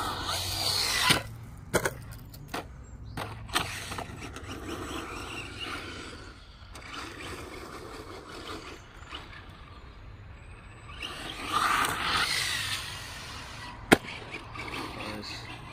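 Electric RC truck driving on a dirt track: two runs of motor whine and tyre noise, one right at the start and one about two-thirds through. Sharp knocks come in between, and one loud crack near the end.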